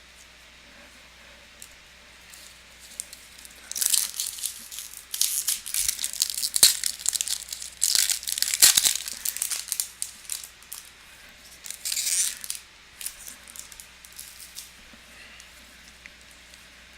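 Plastic trading-card pack wrapper crinkling and tearing as it is opened by hand, crackling on and off from about four seconds in until about thirteen seconds in.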